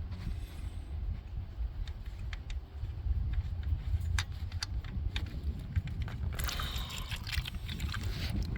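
Small clicks and taps at the motorcycle's oil drain plug, then engine oil starting to pour out of the drain hole into a drain pan about six seconds in, over a steady low rumble.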